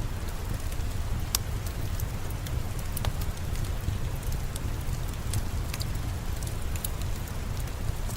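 Steady rain with a low, even rumble, mixed with the scattered sharp pops and crackles of a fireplace fire.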